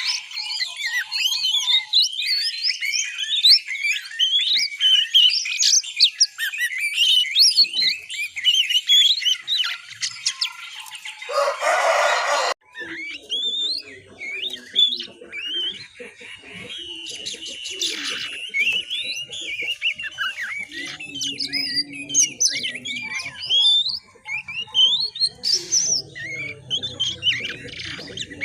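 Juvenile oriental magpie-robin twittering continuously in rapid high chirps and trills: the 'ngiriwik' babble of a young bird learning its song. About eleven seconds in, a burst of hiss lasts about a second and a half and cuts off suddenly.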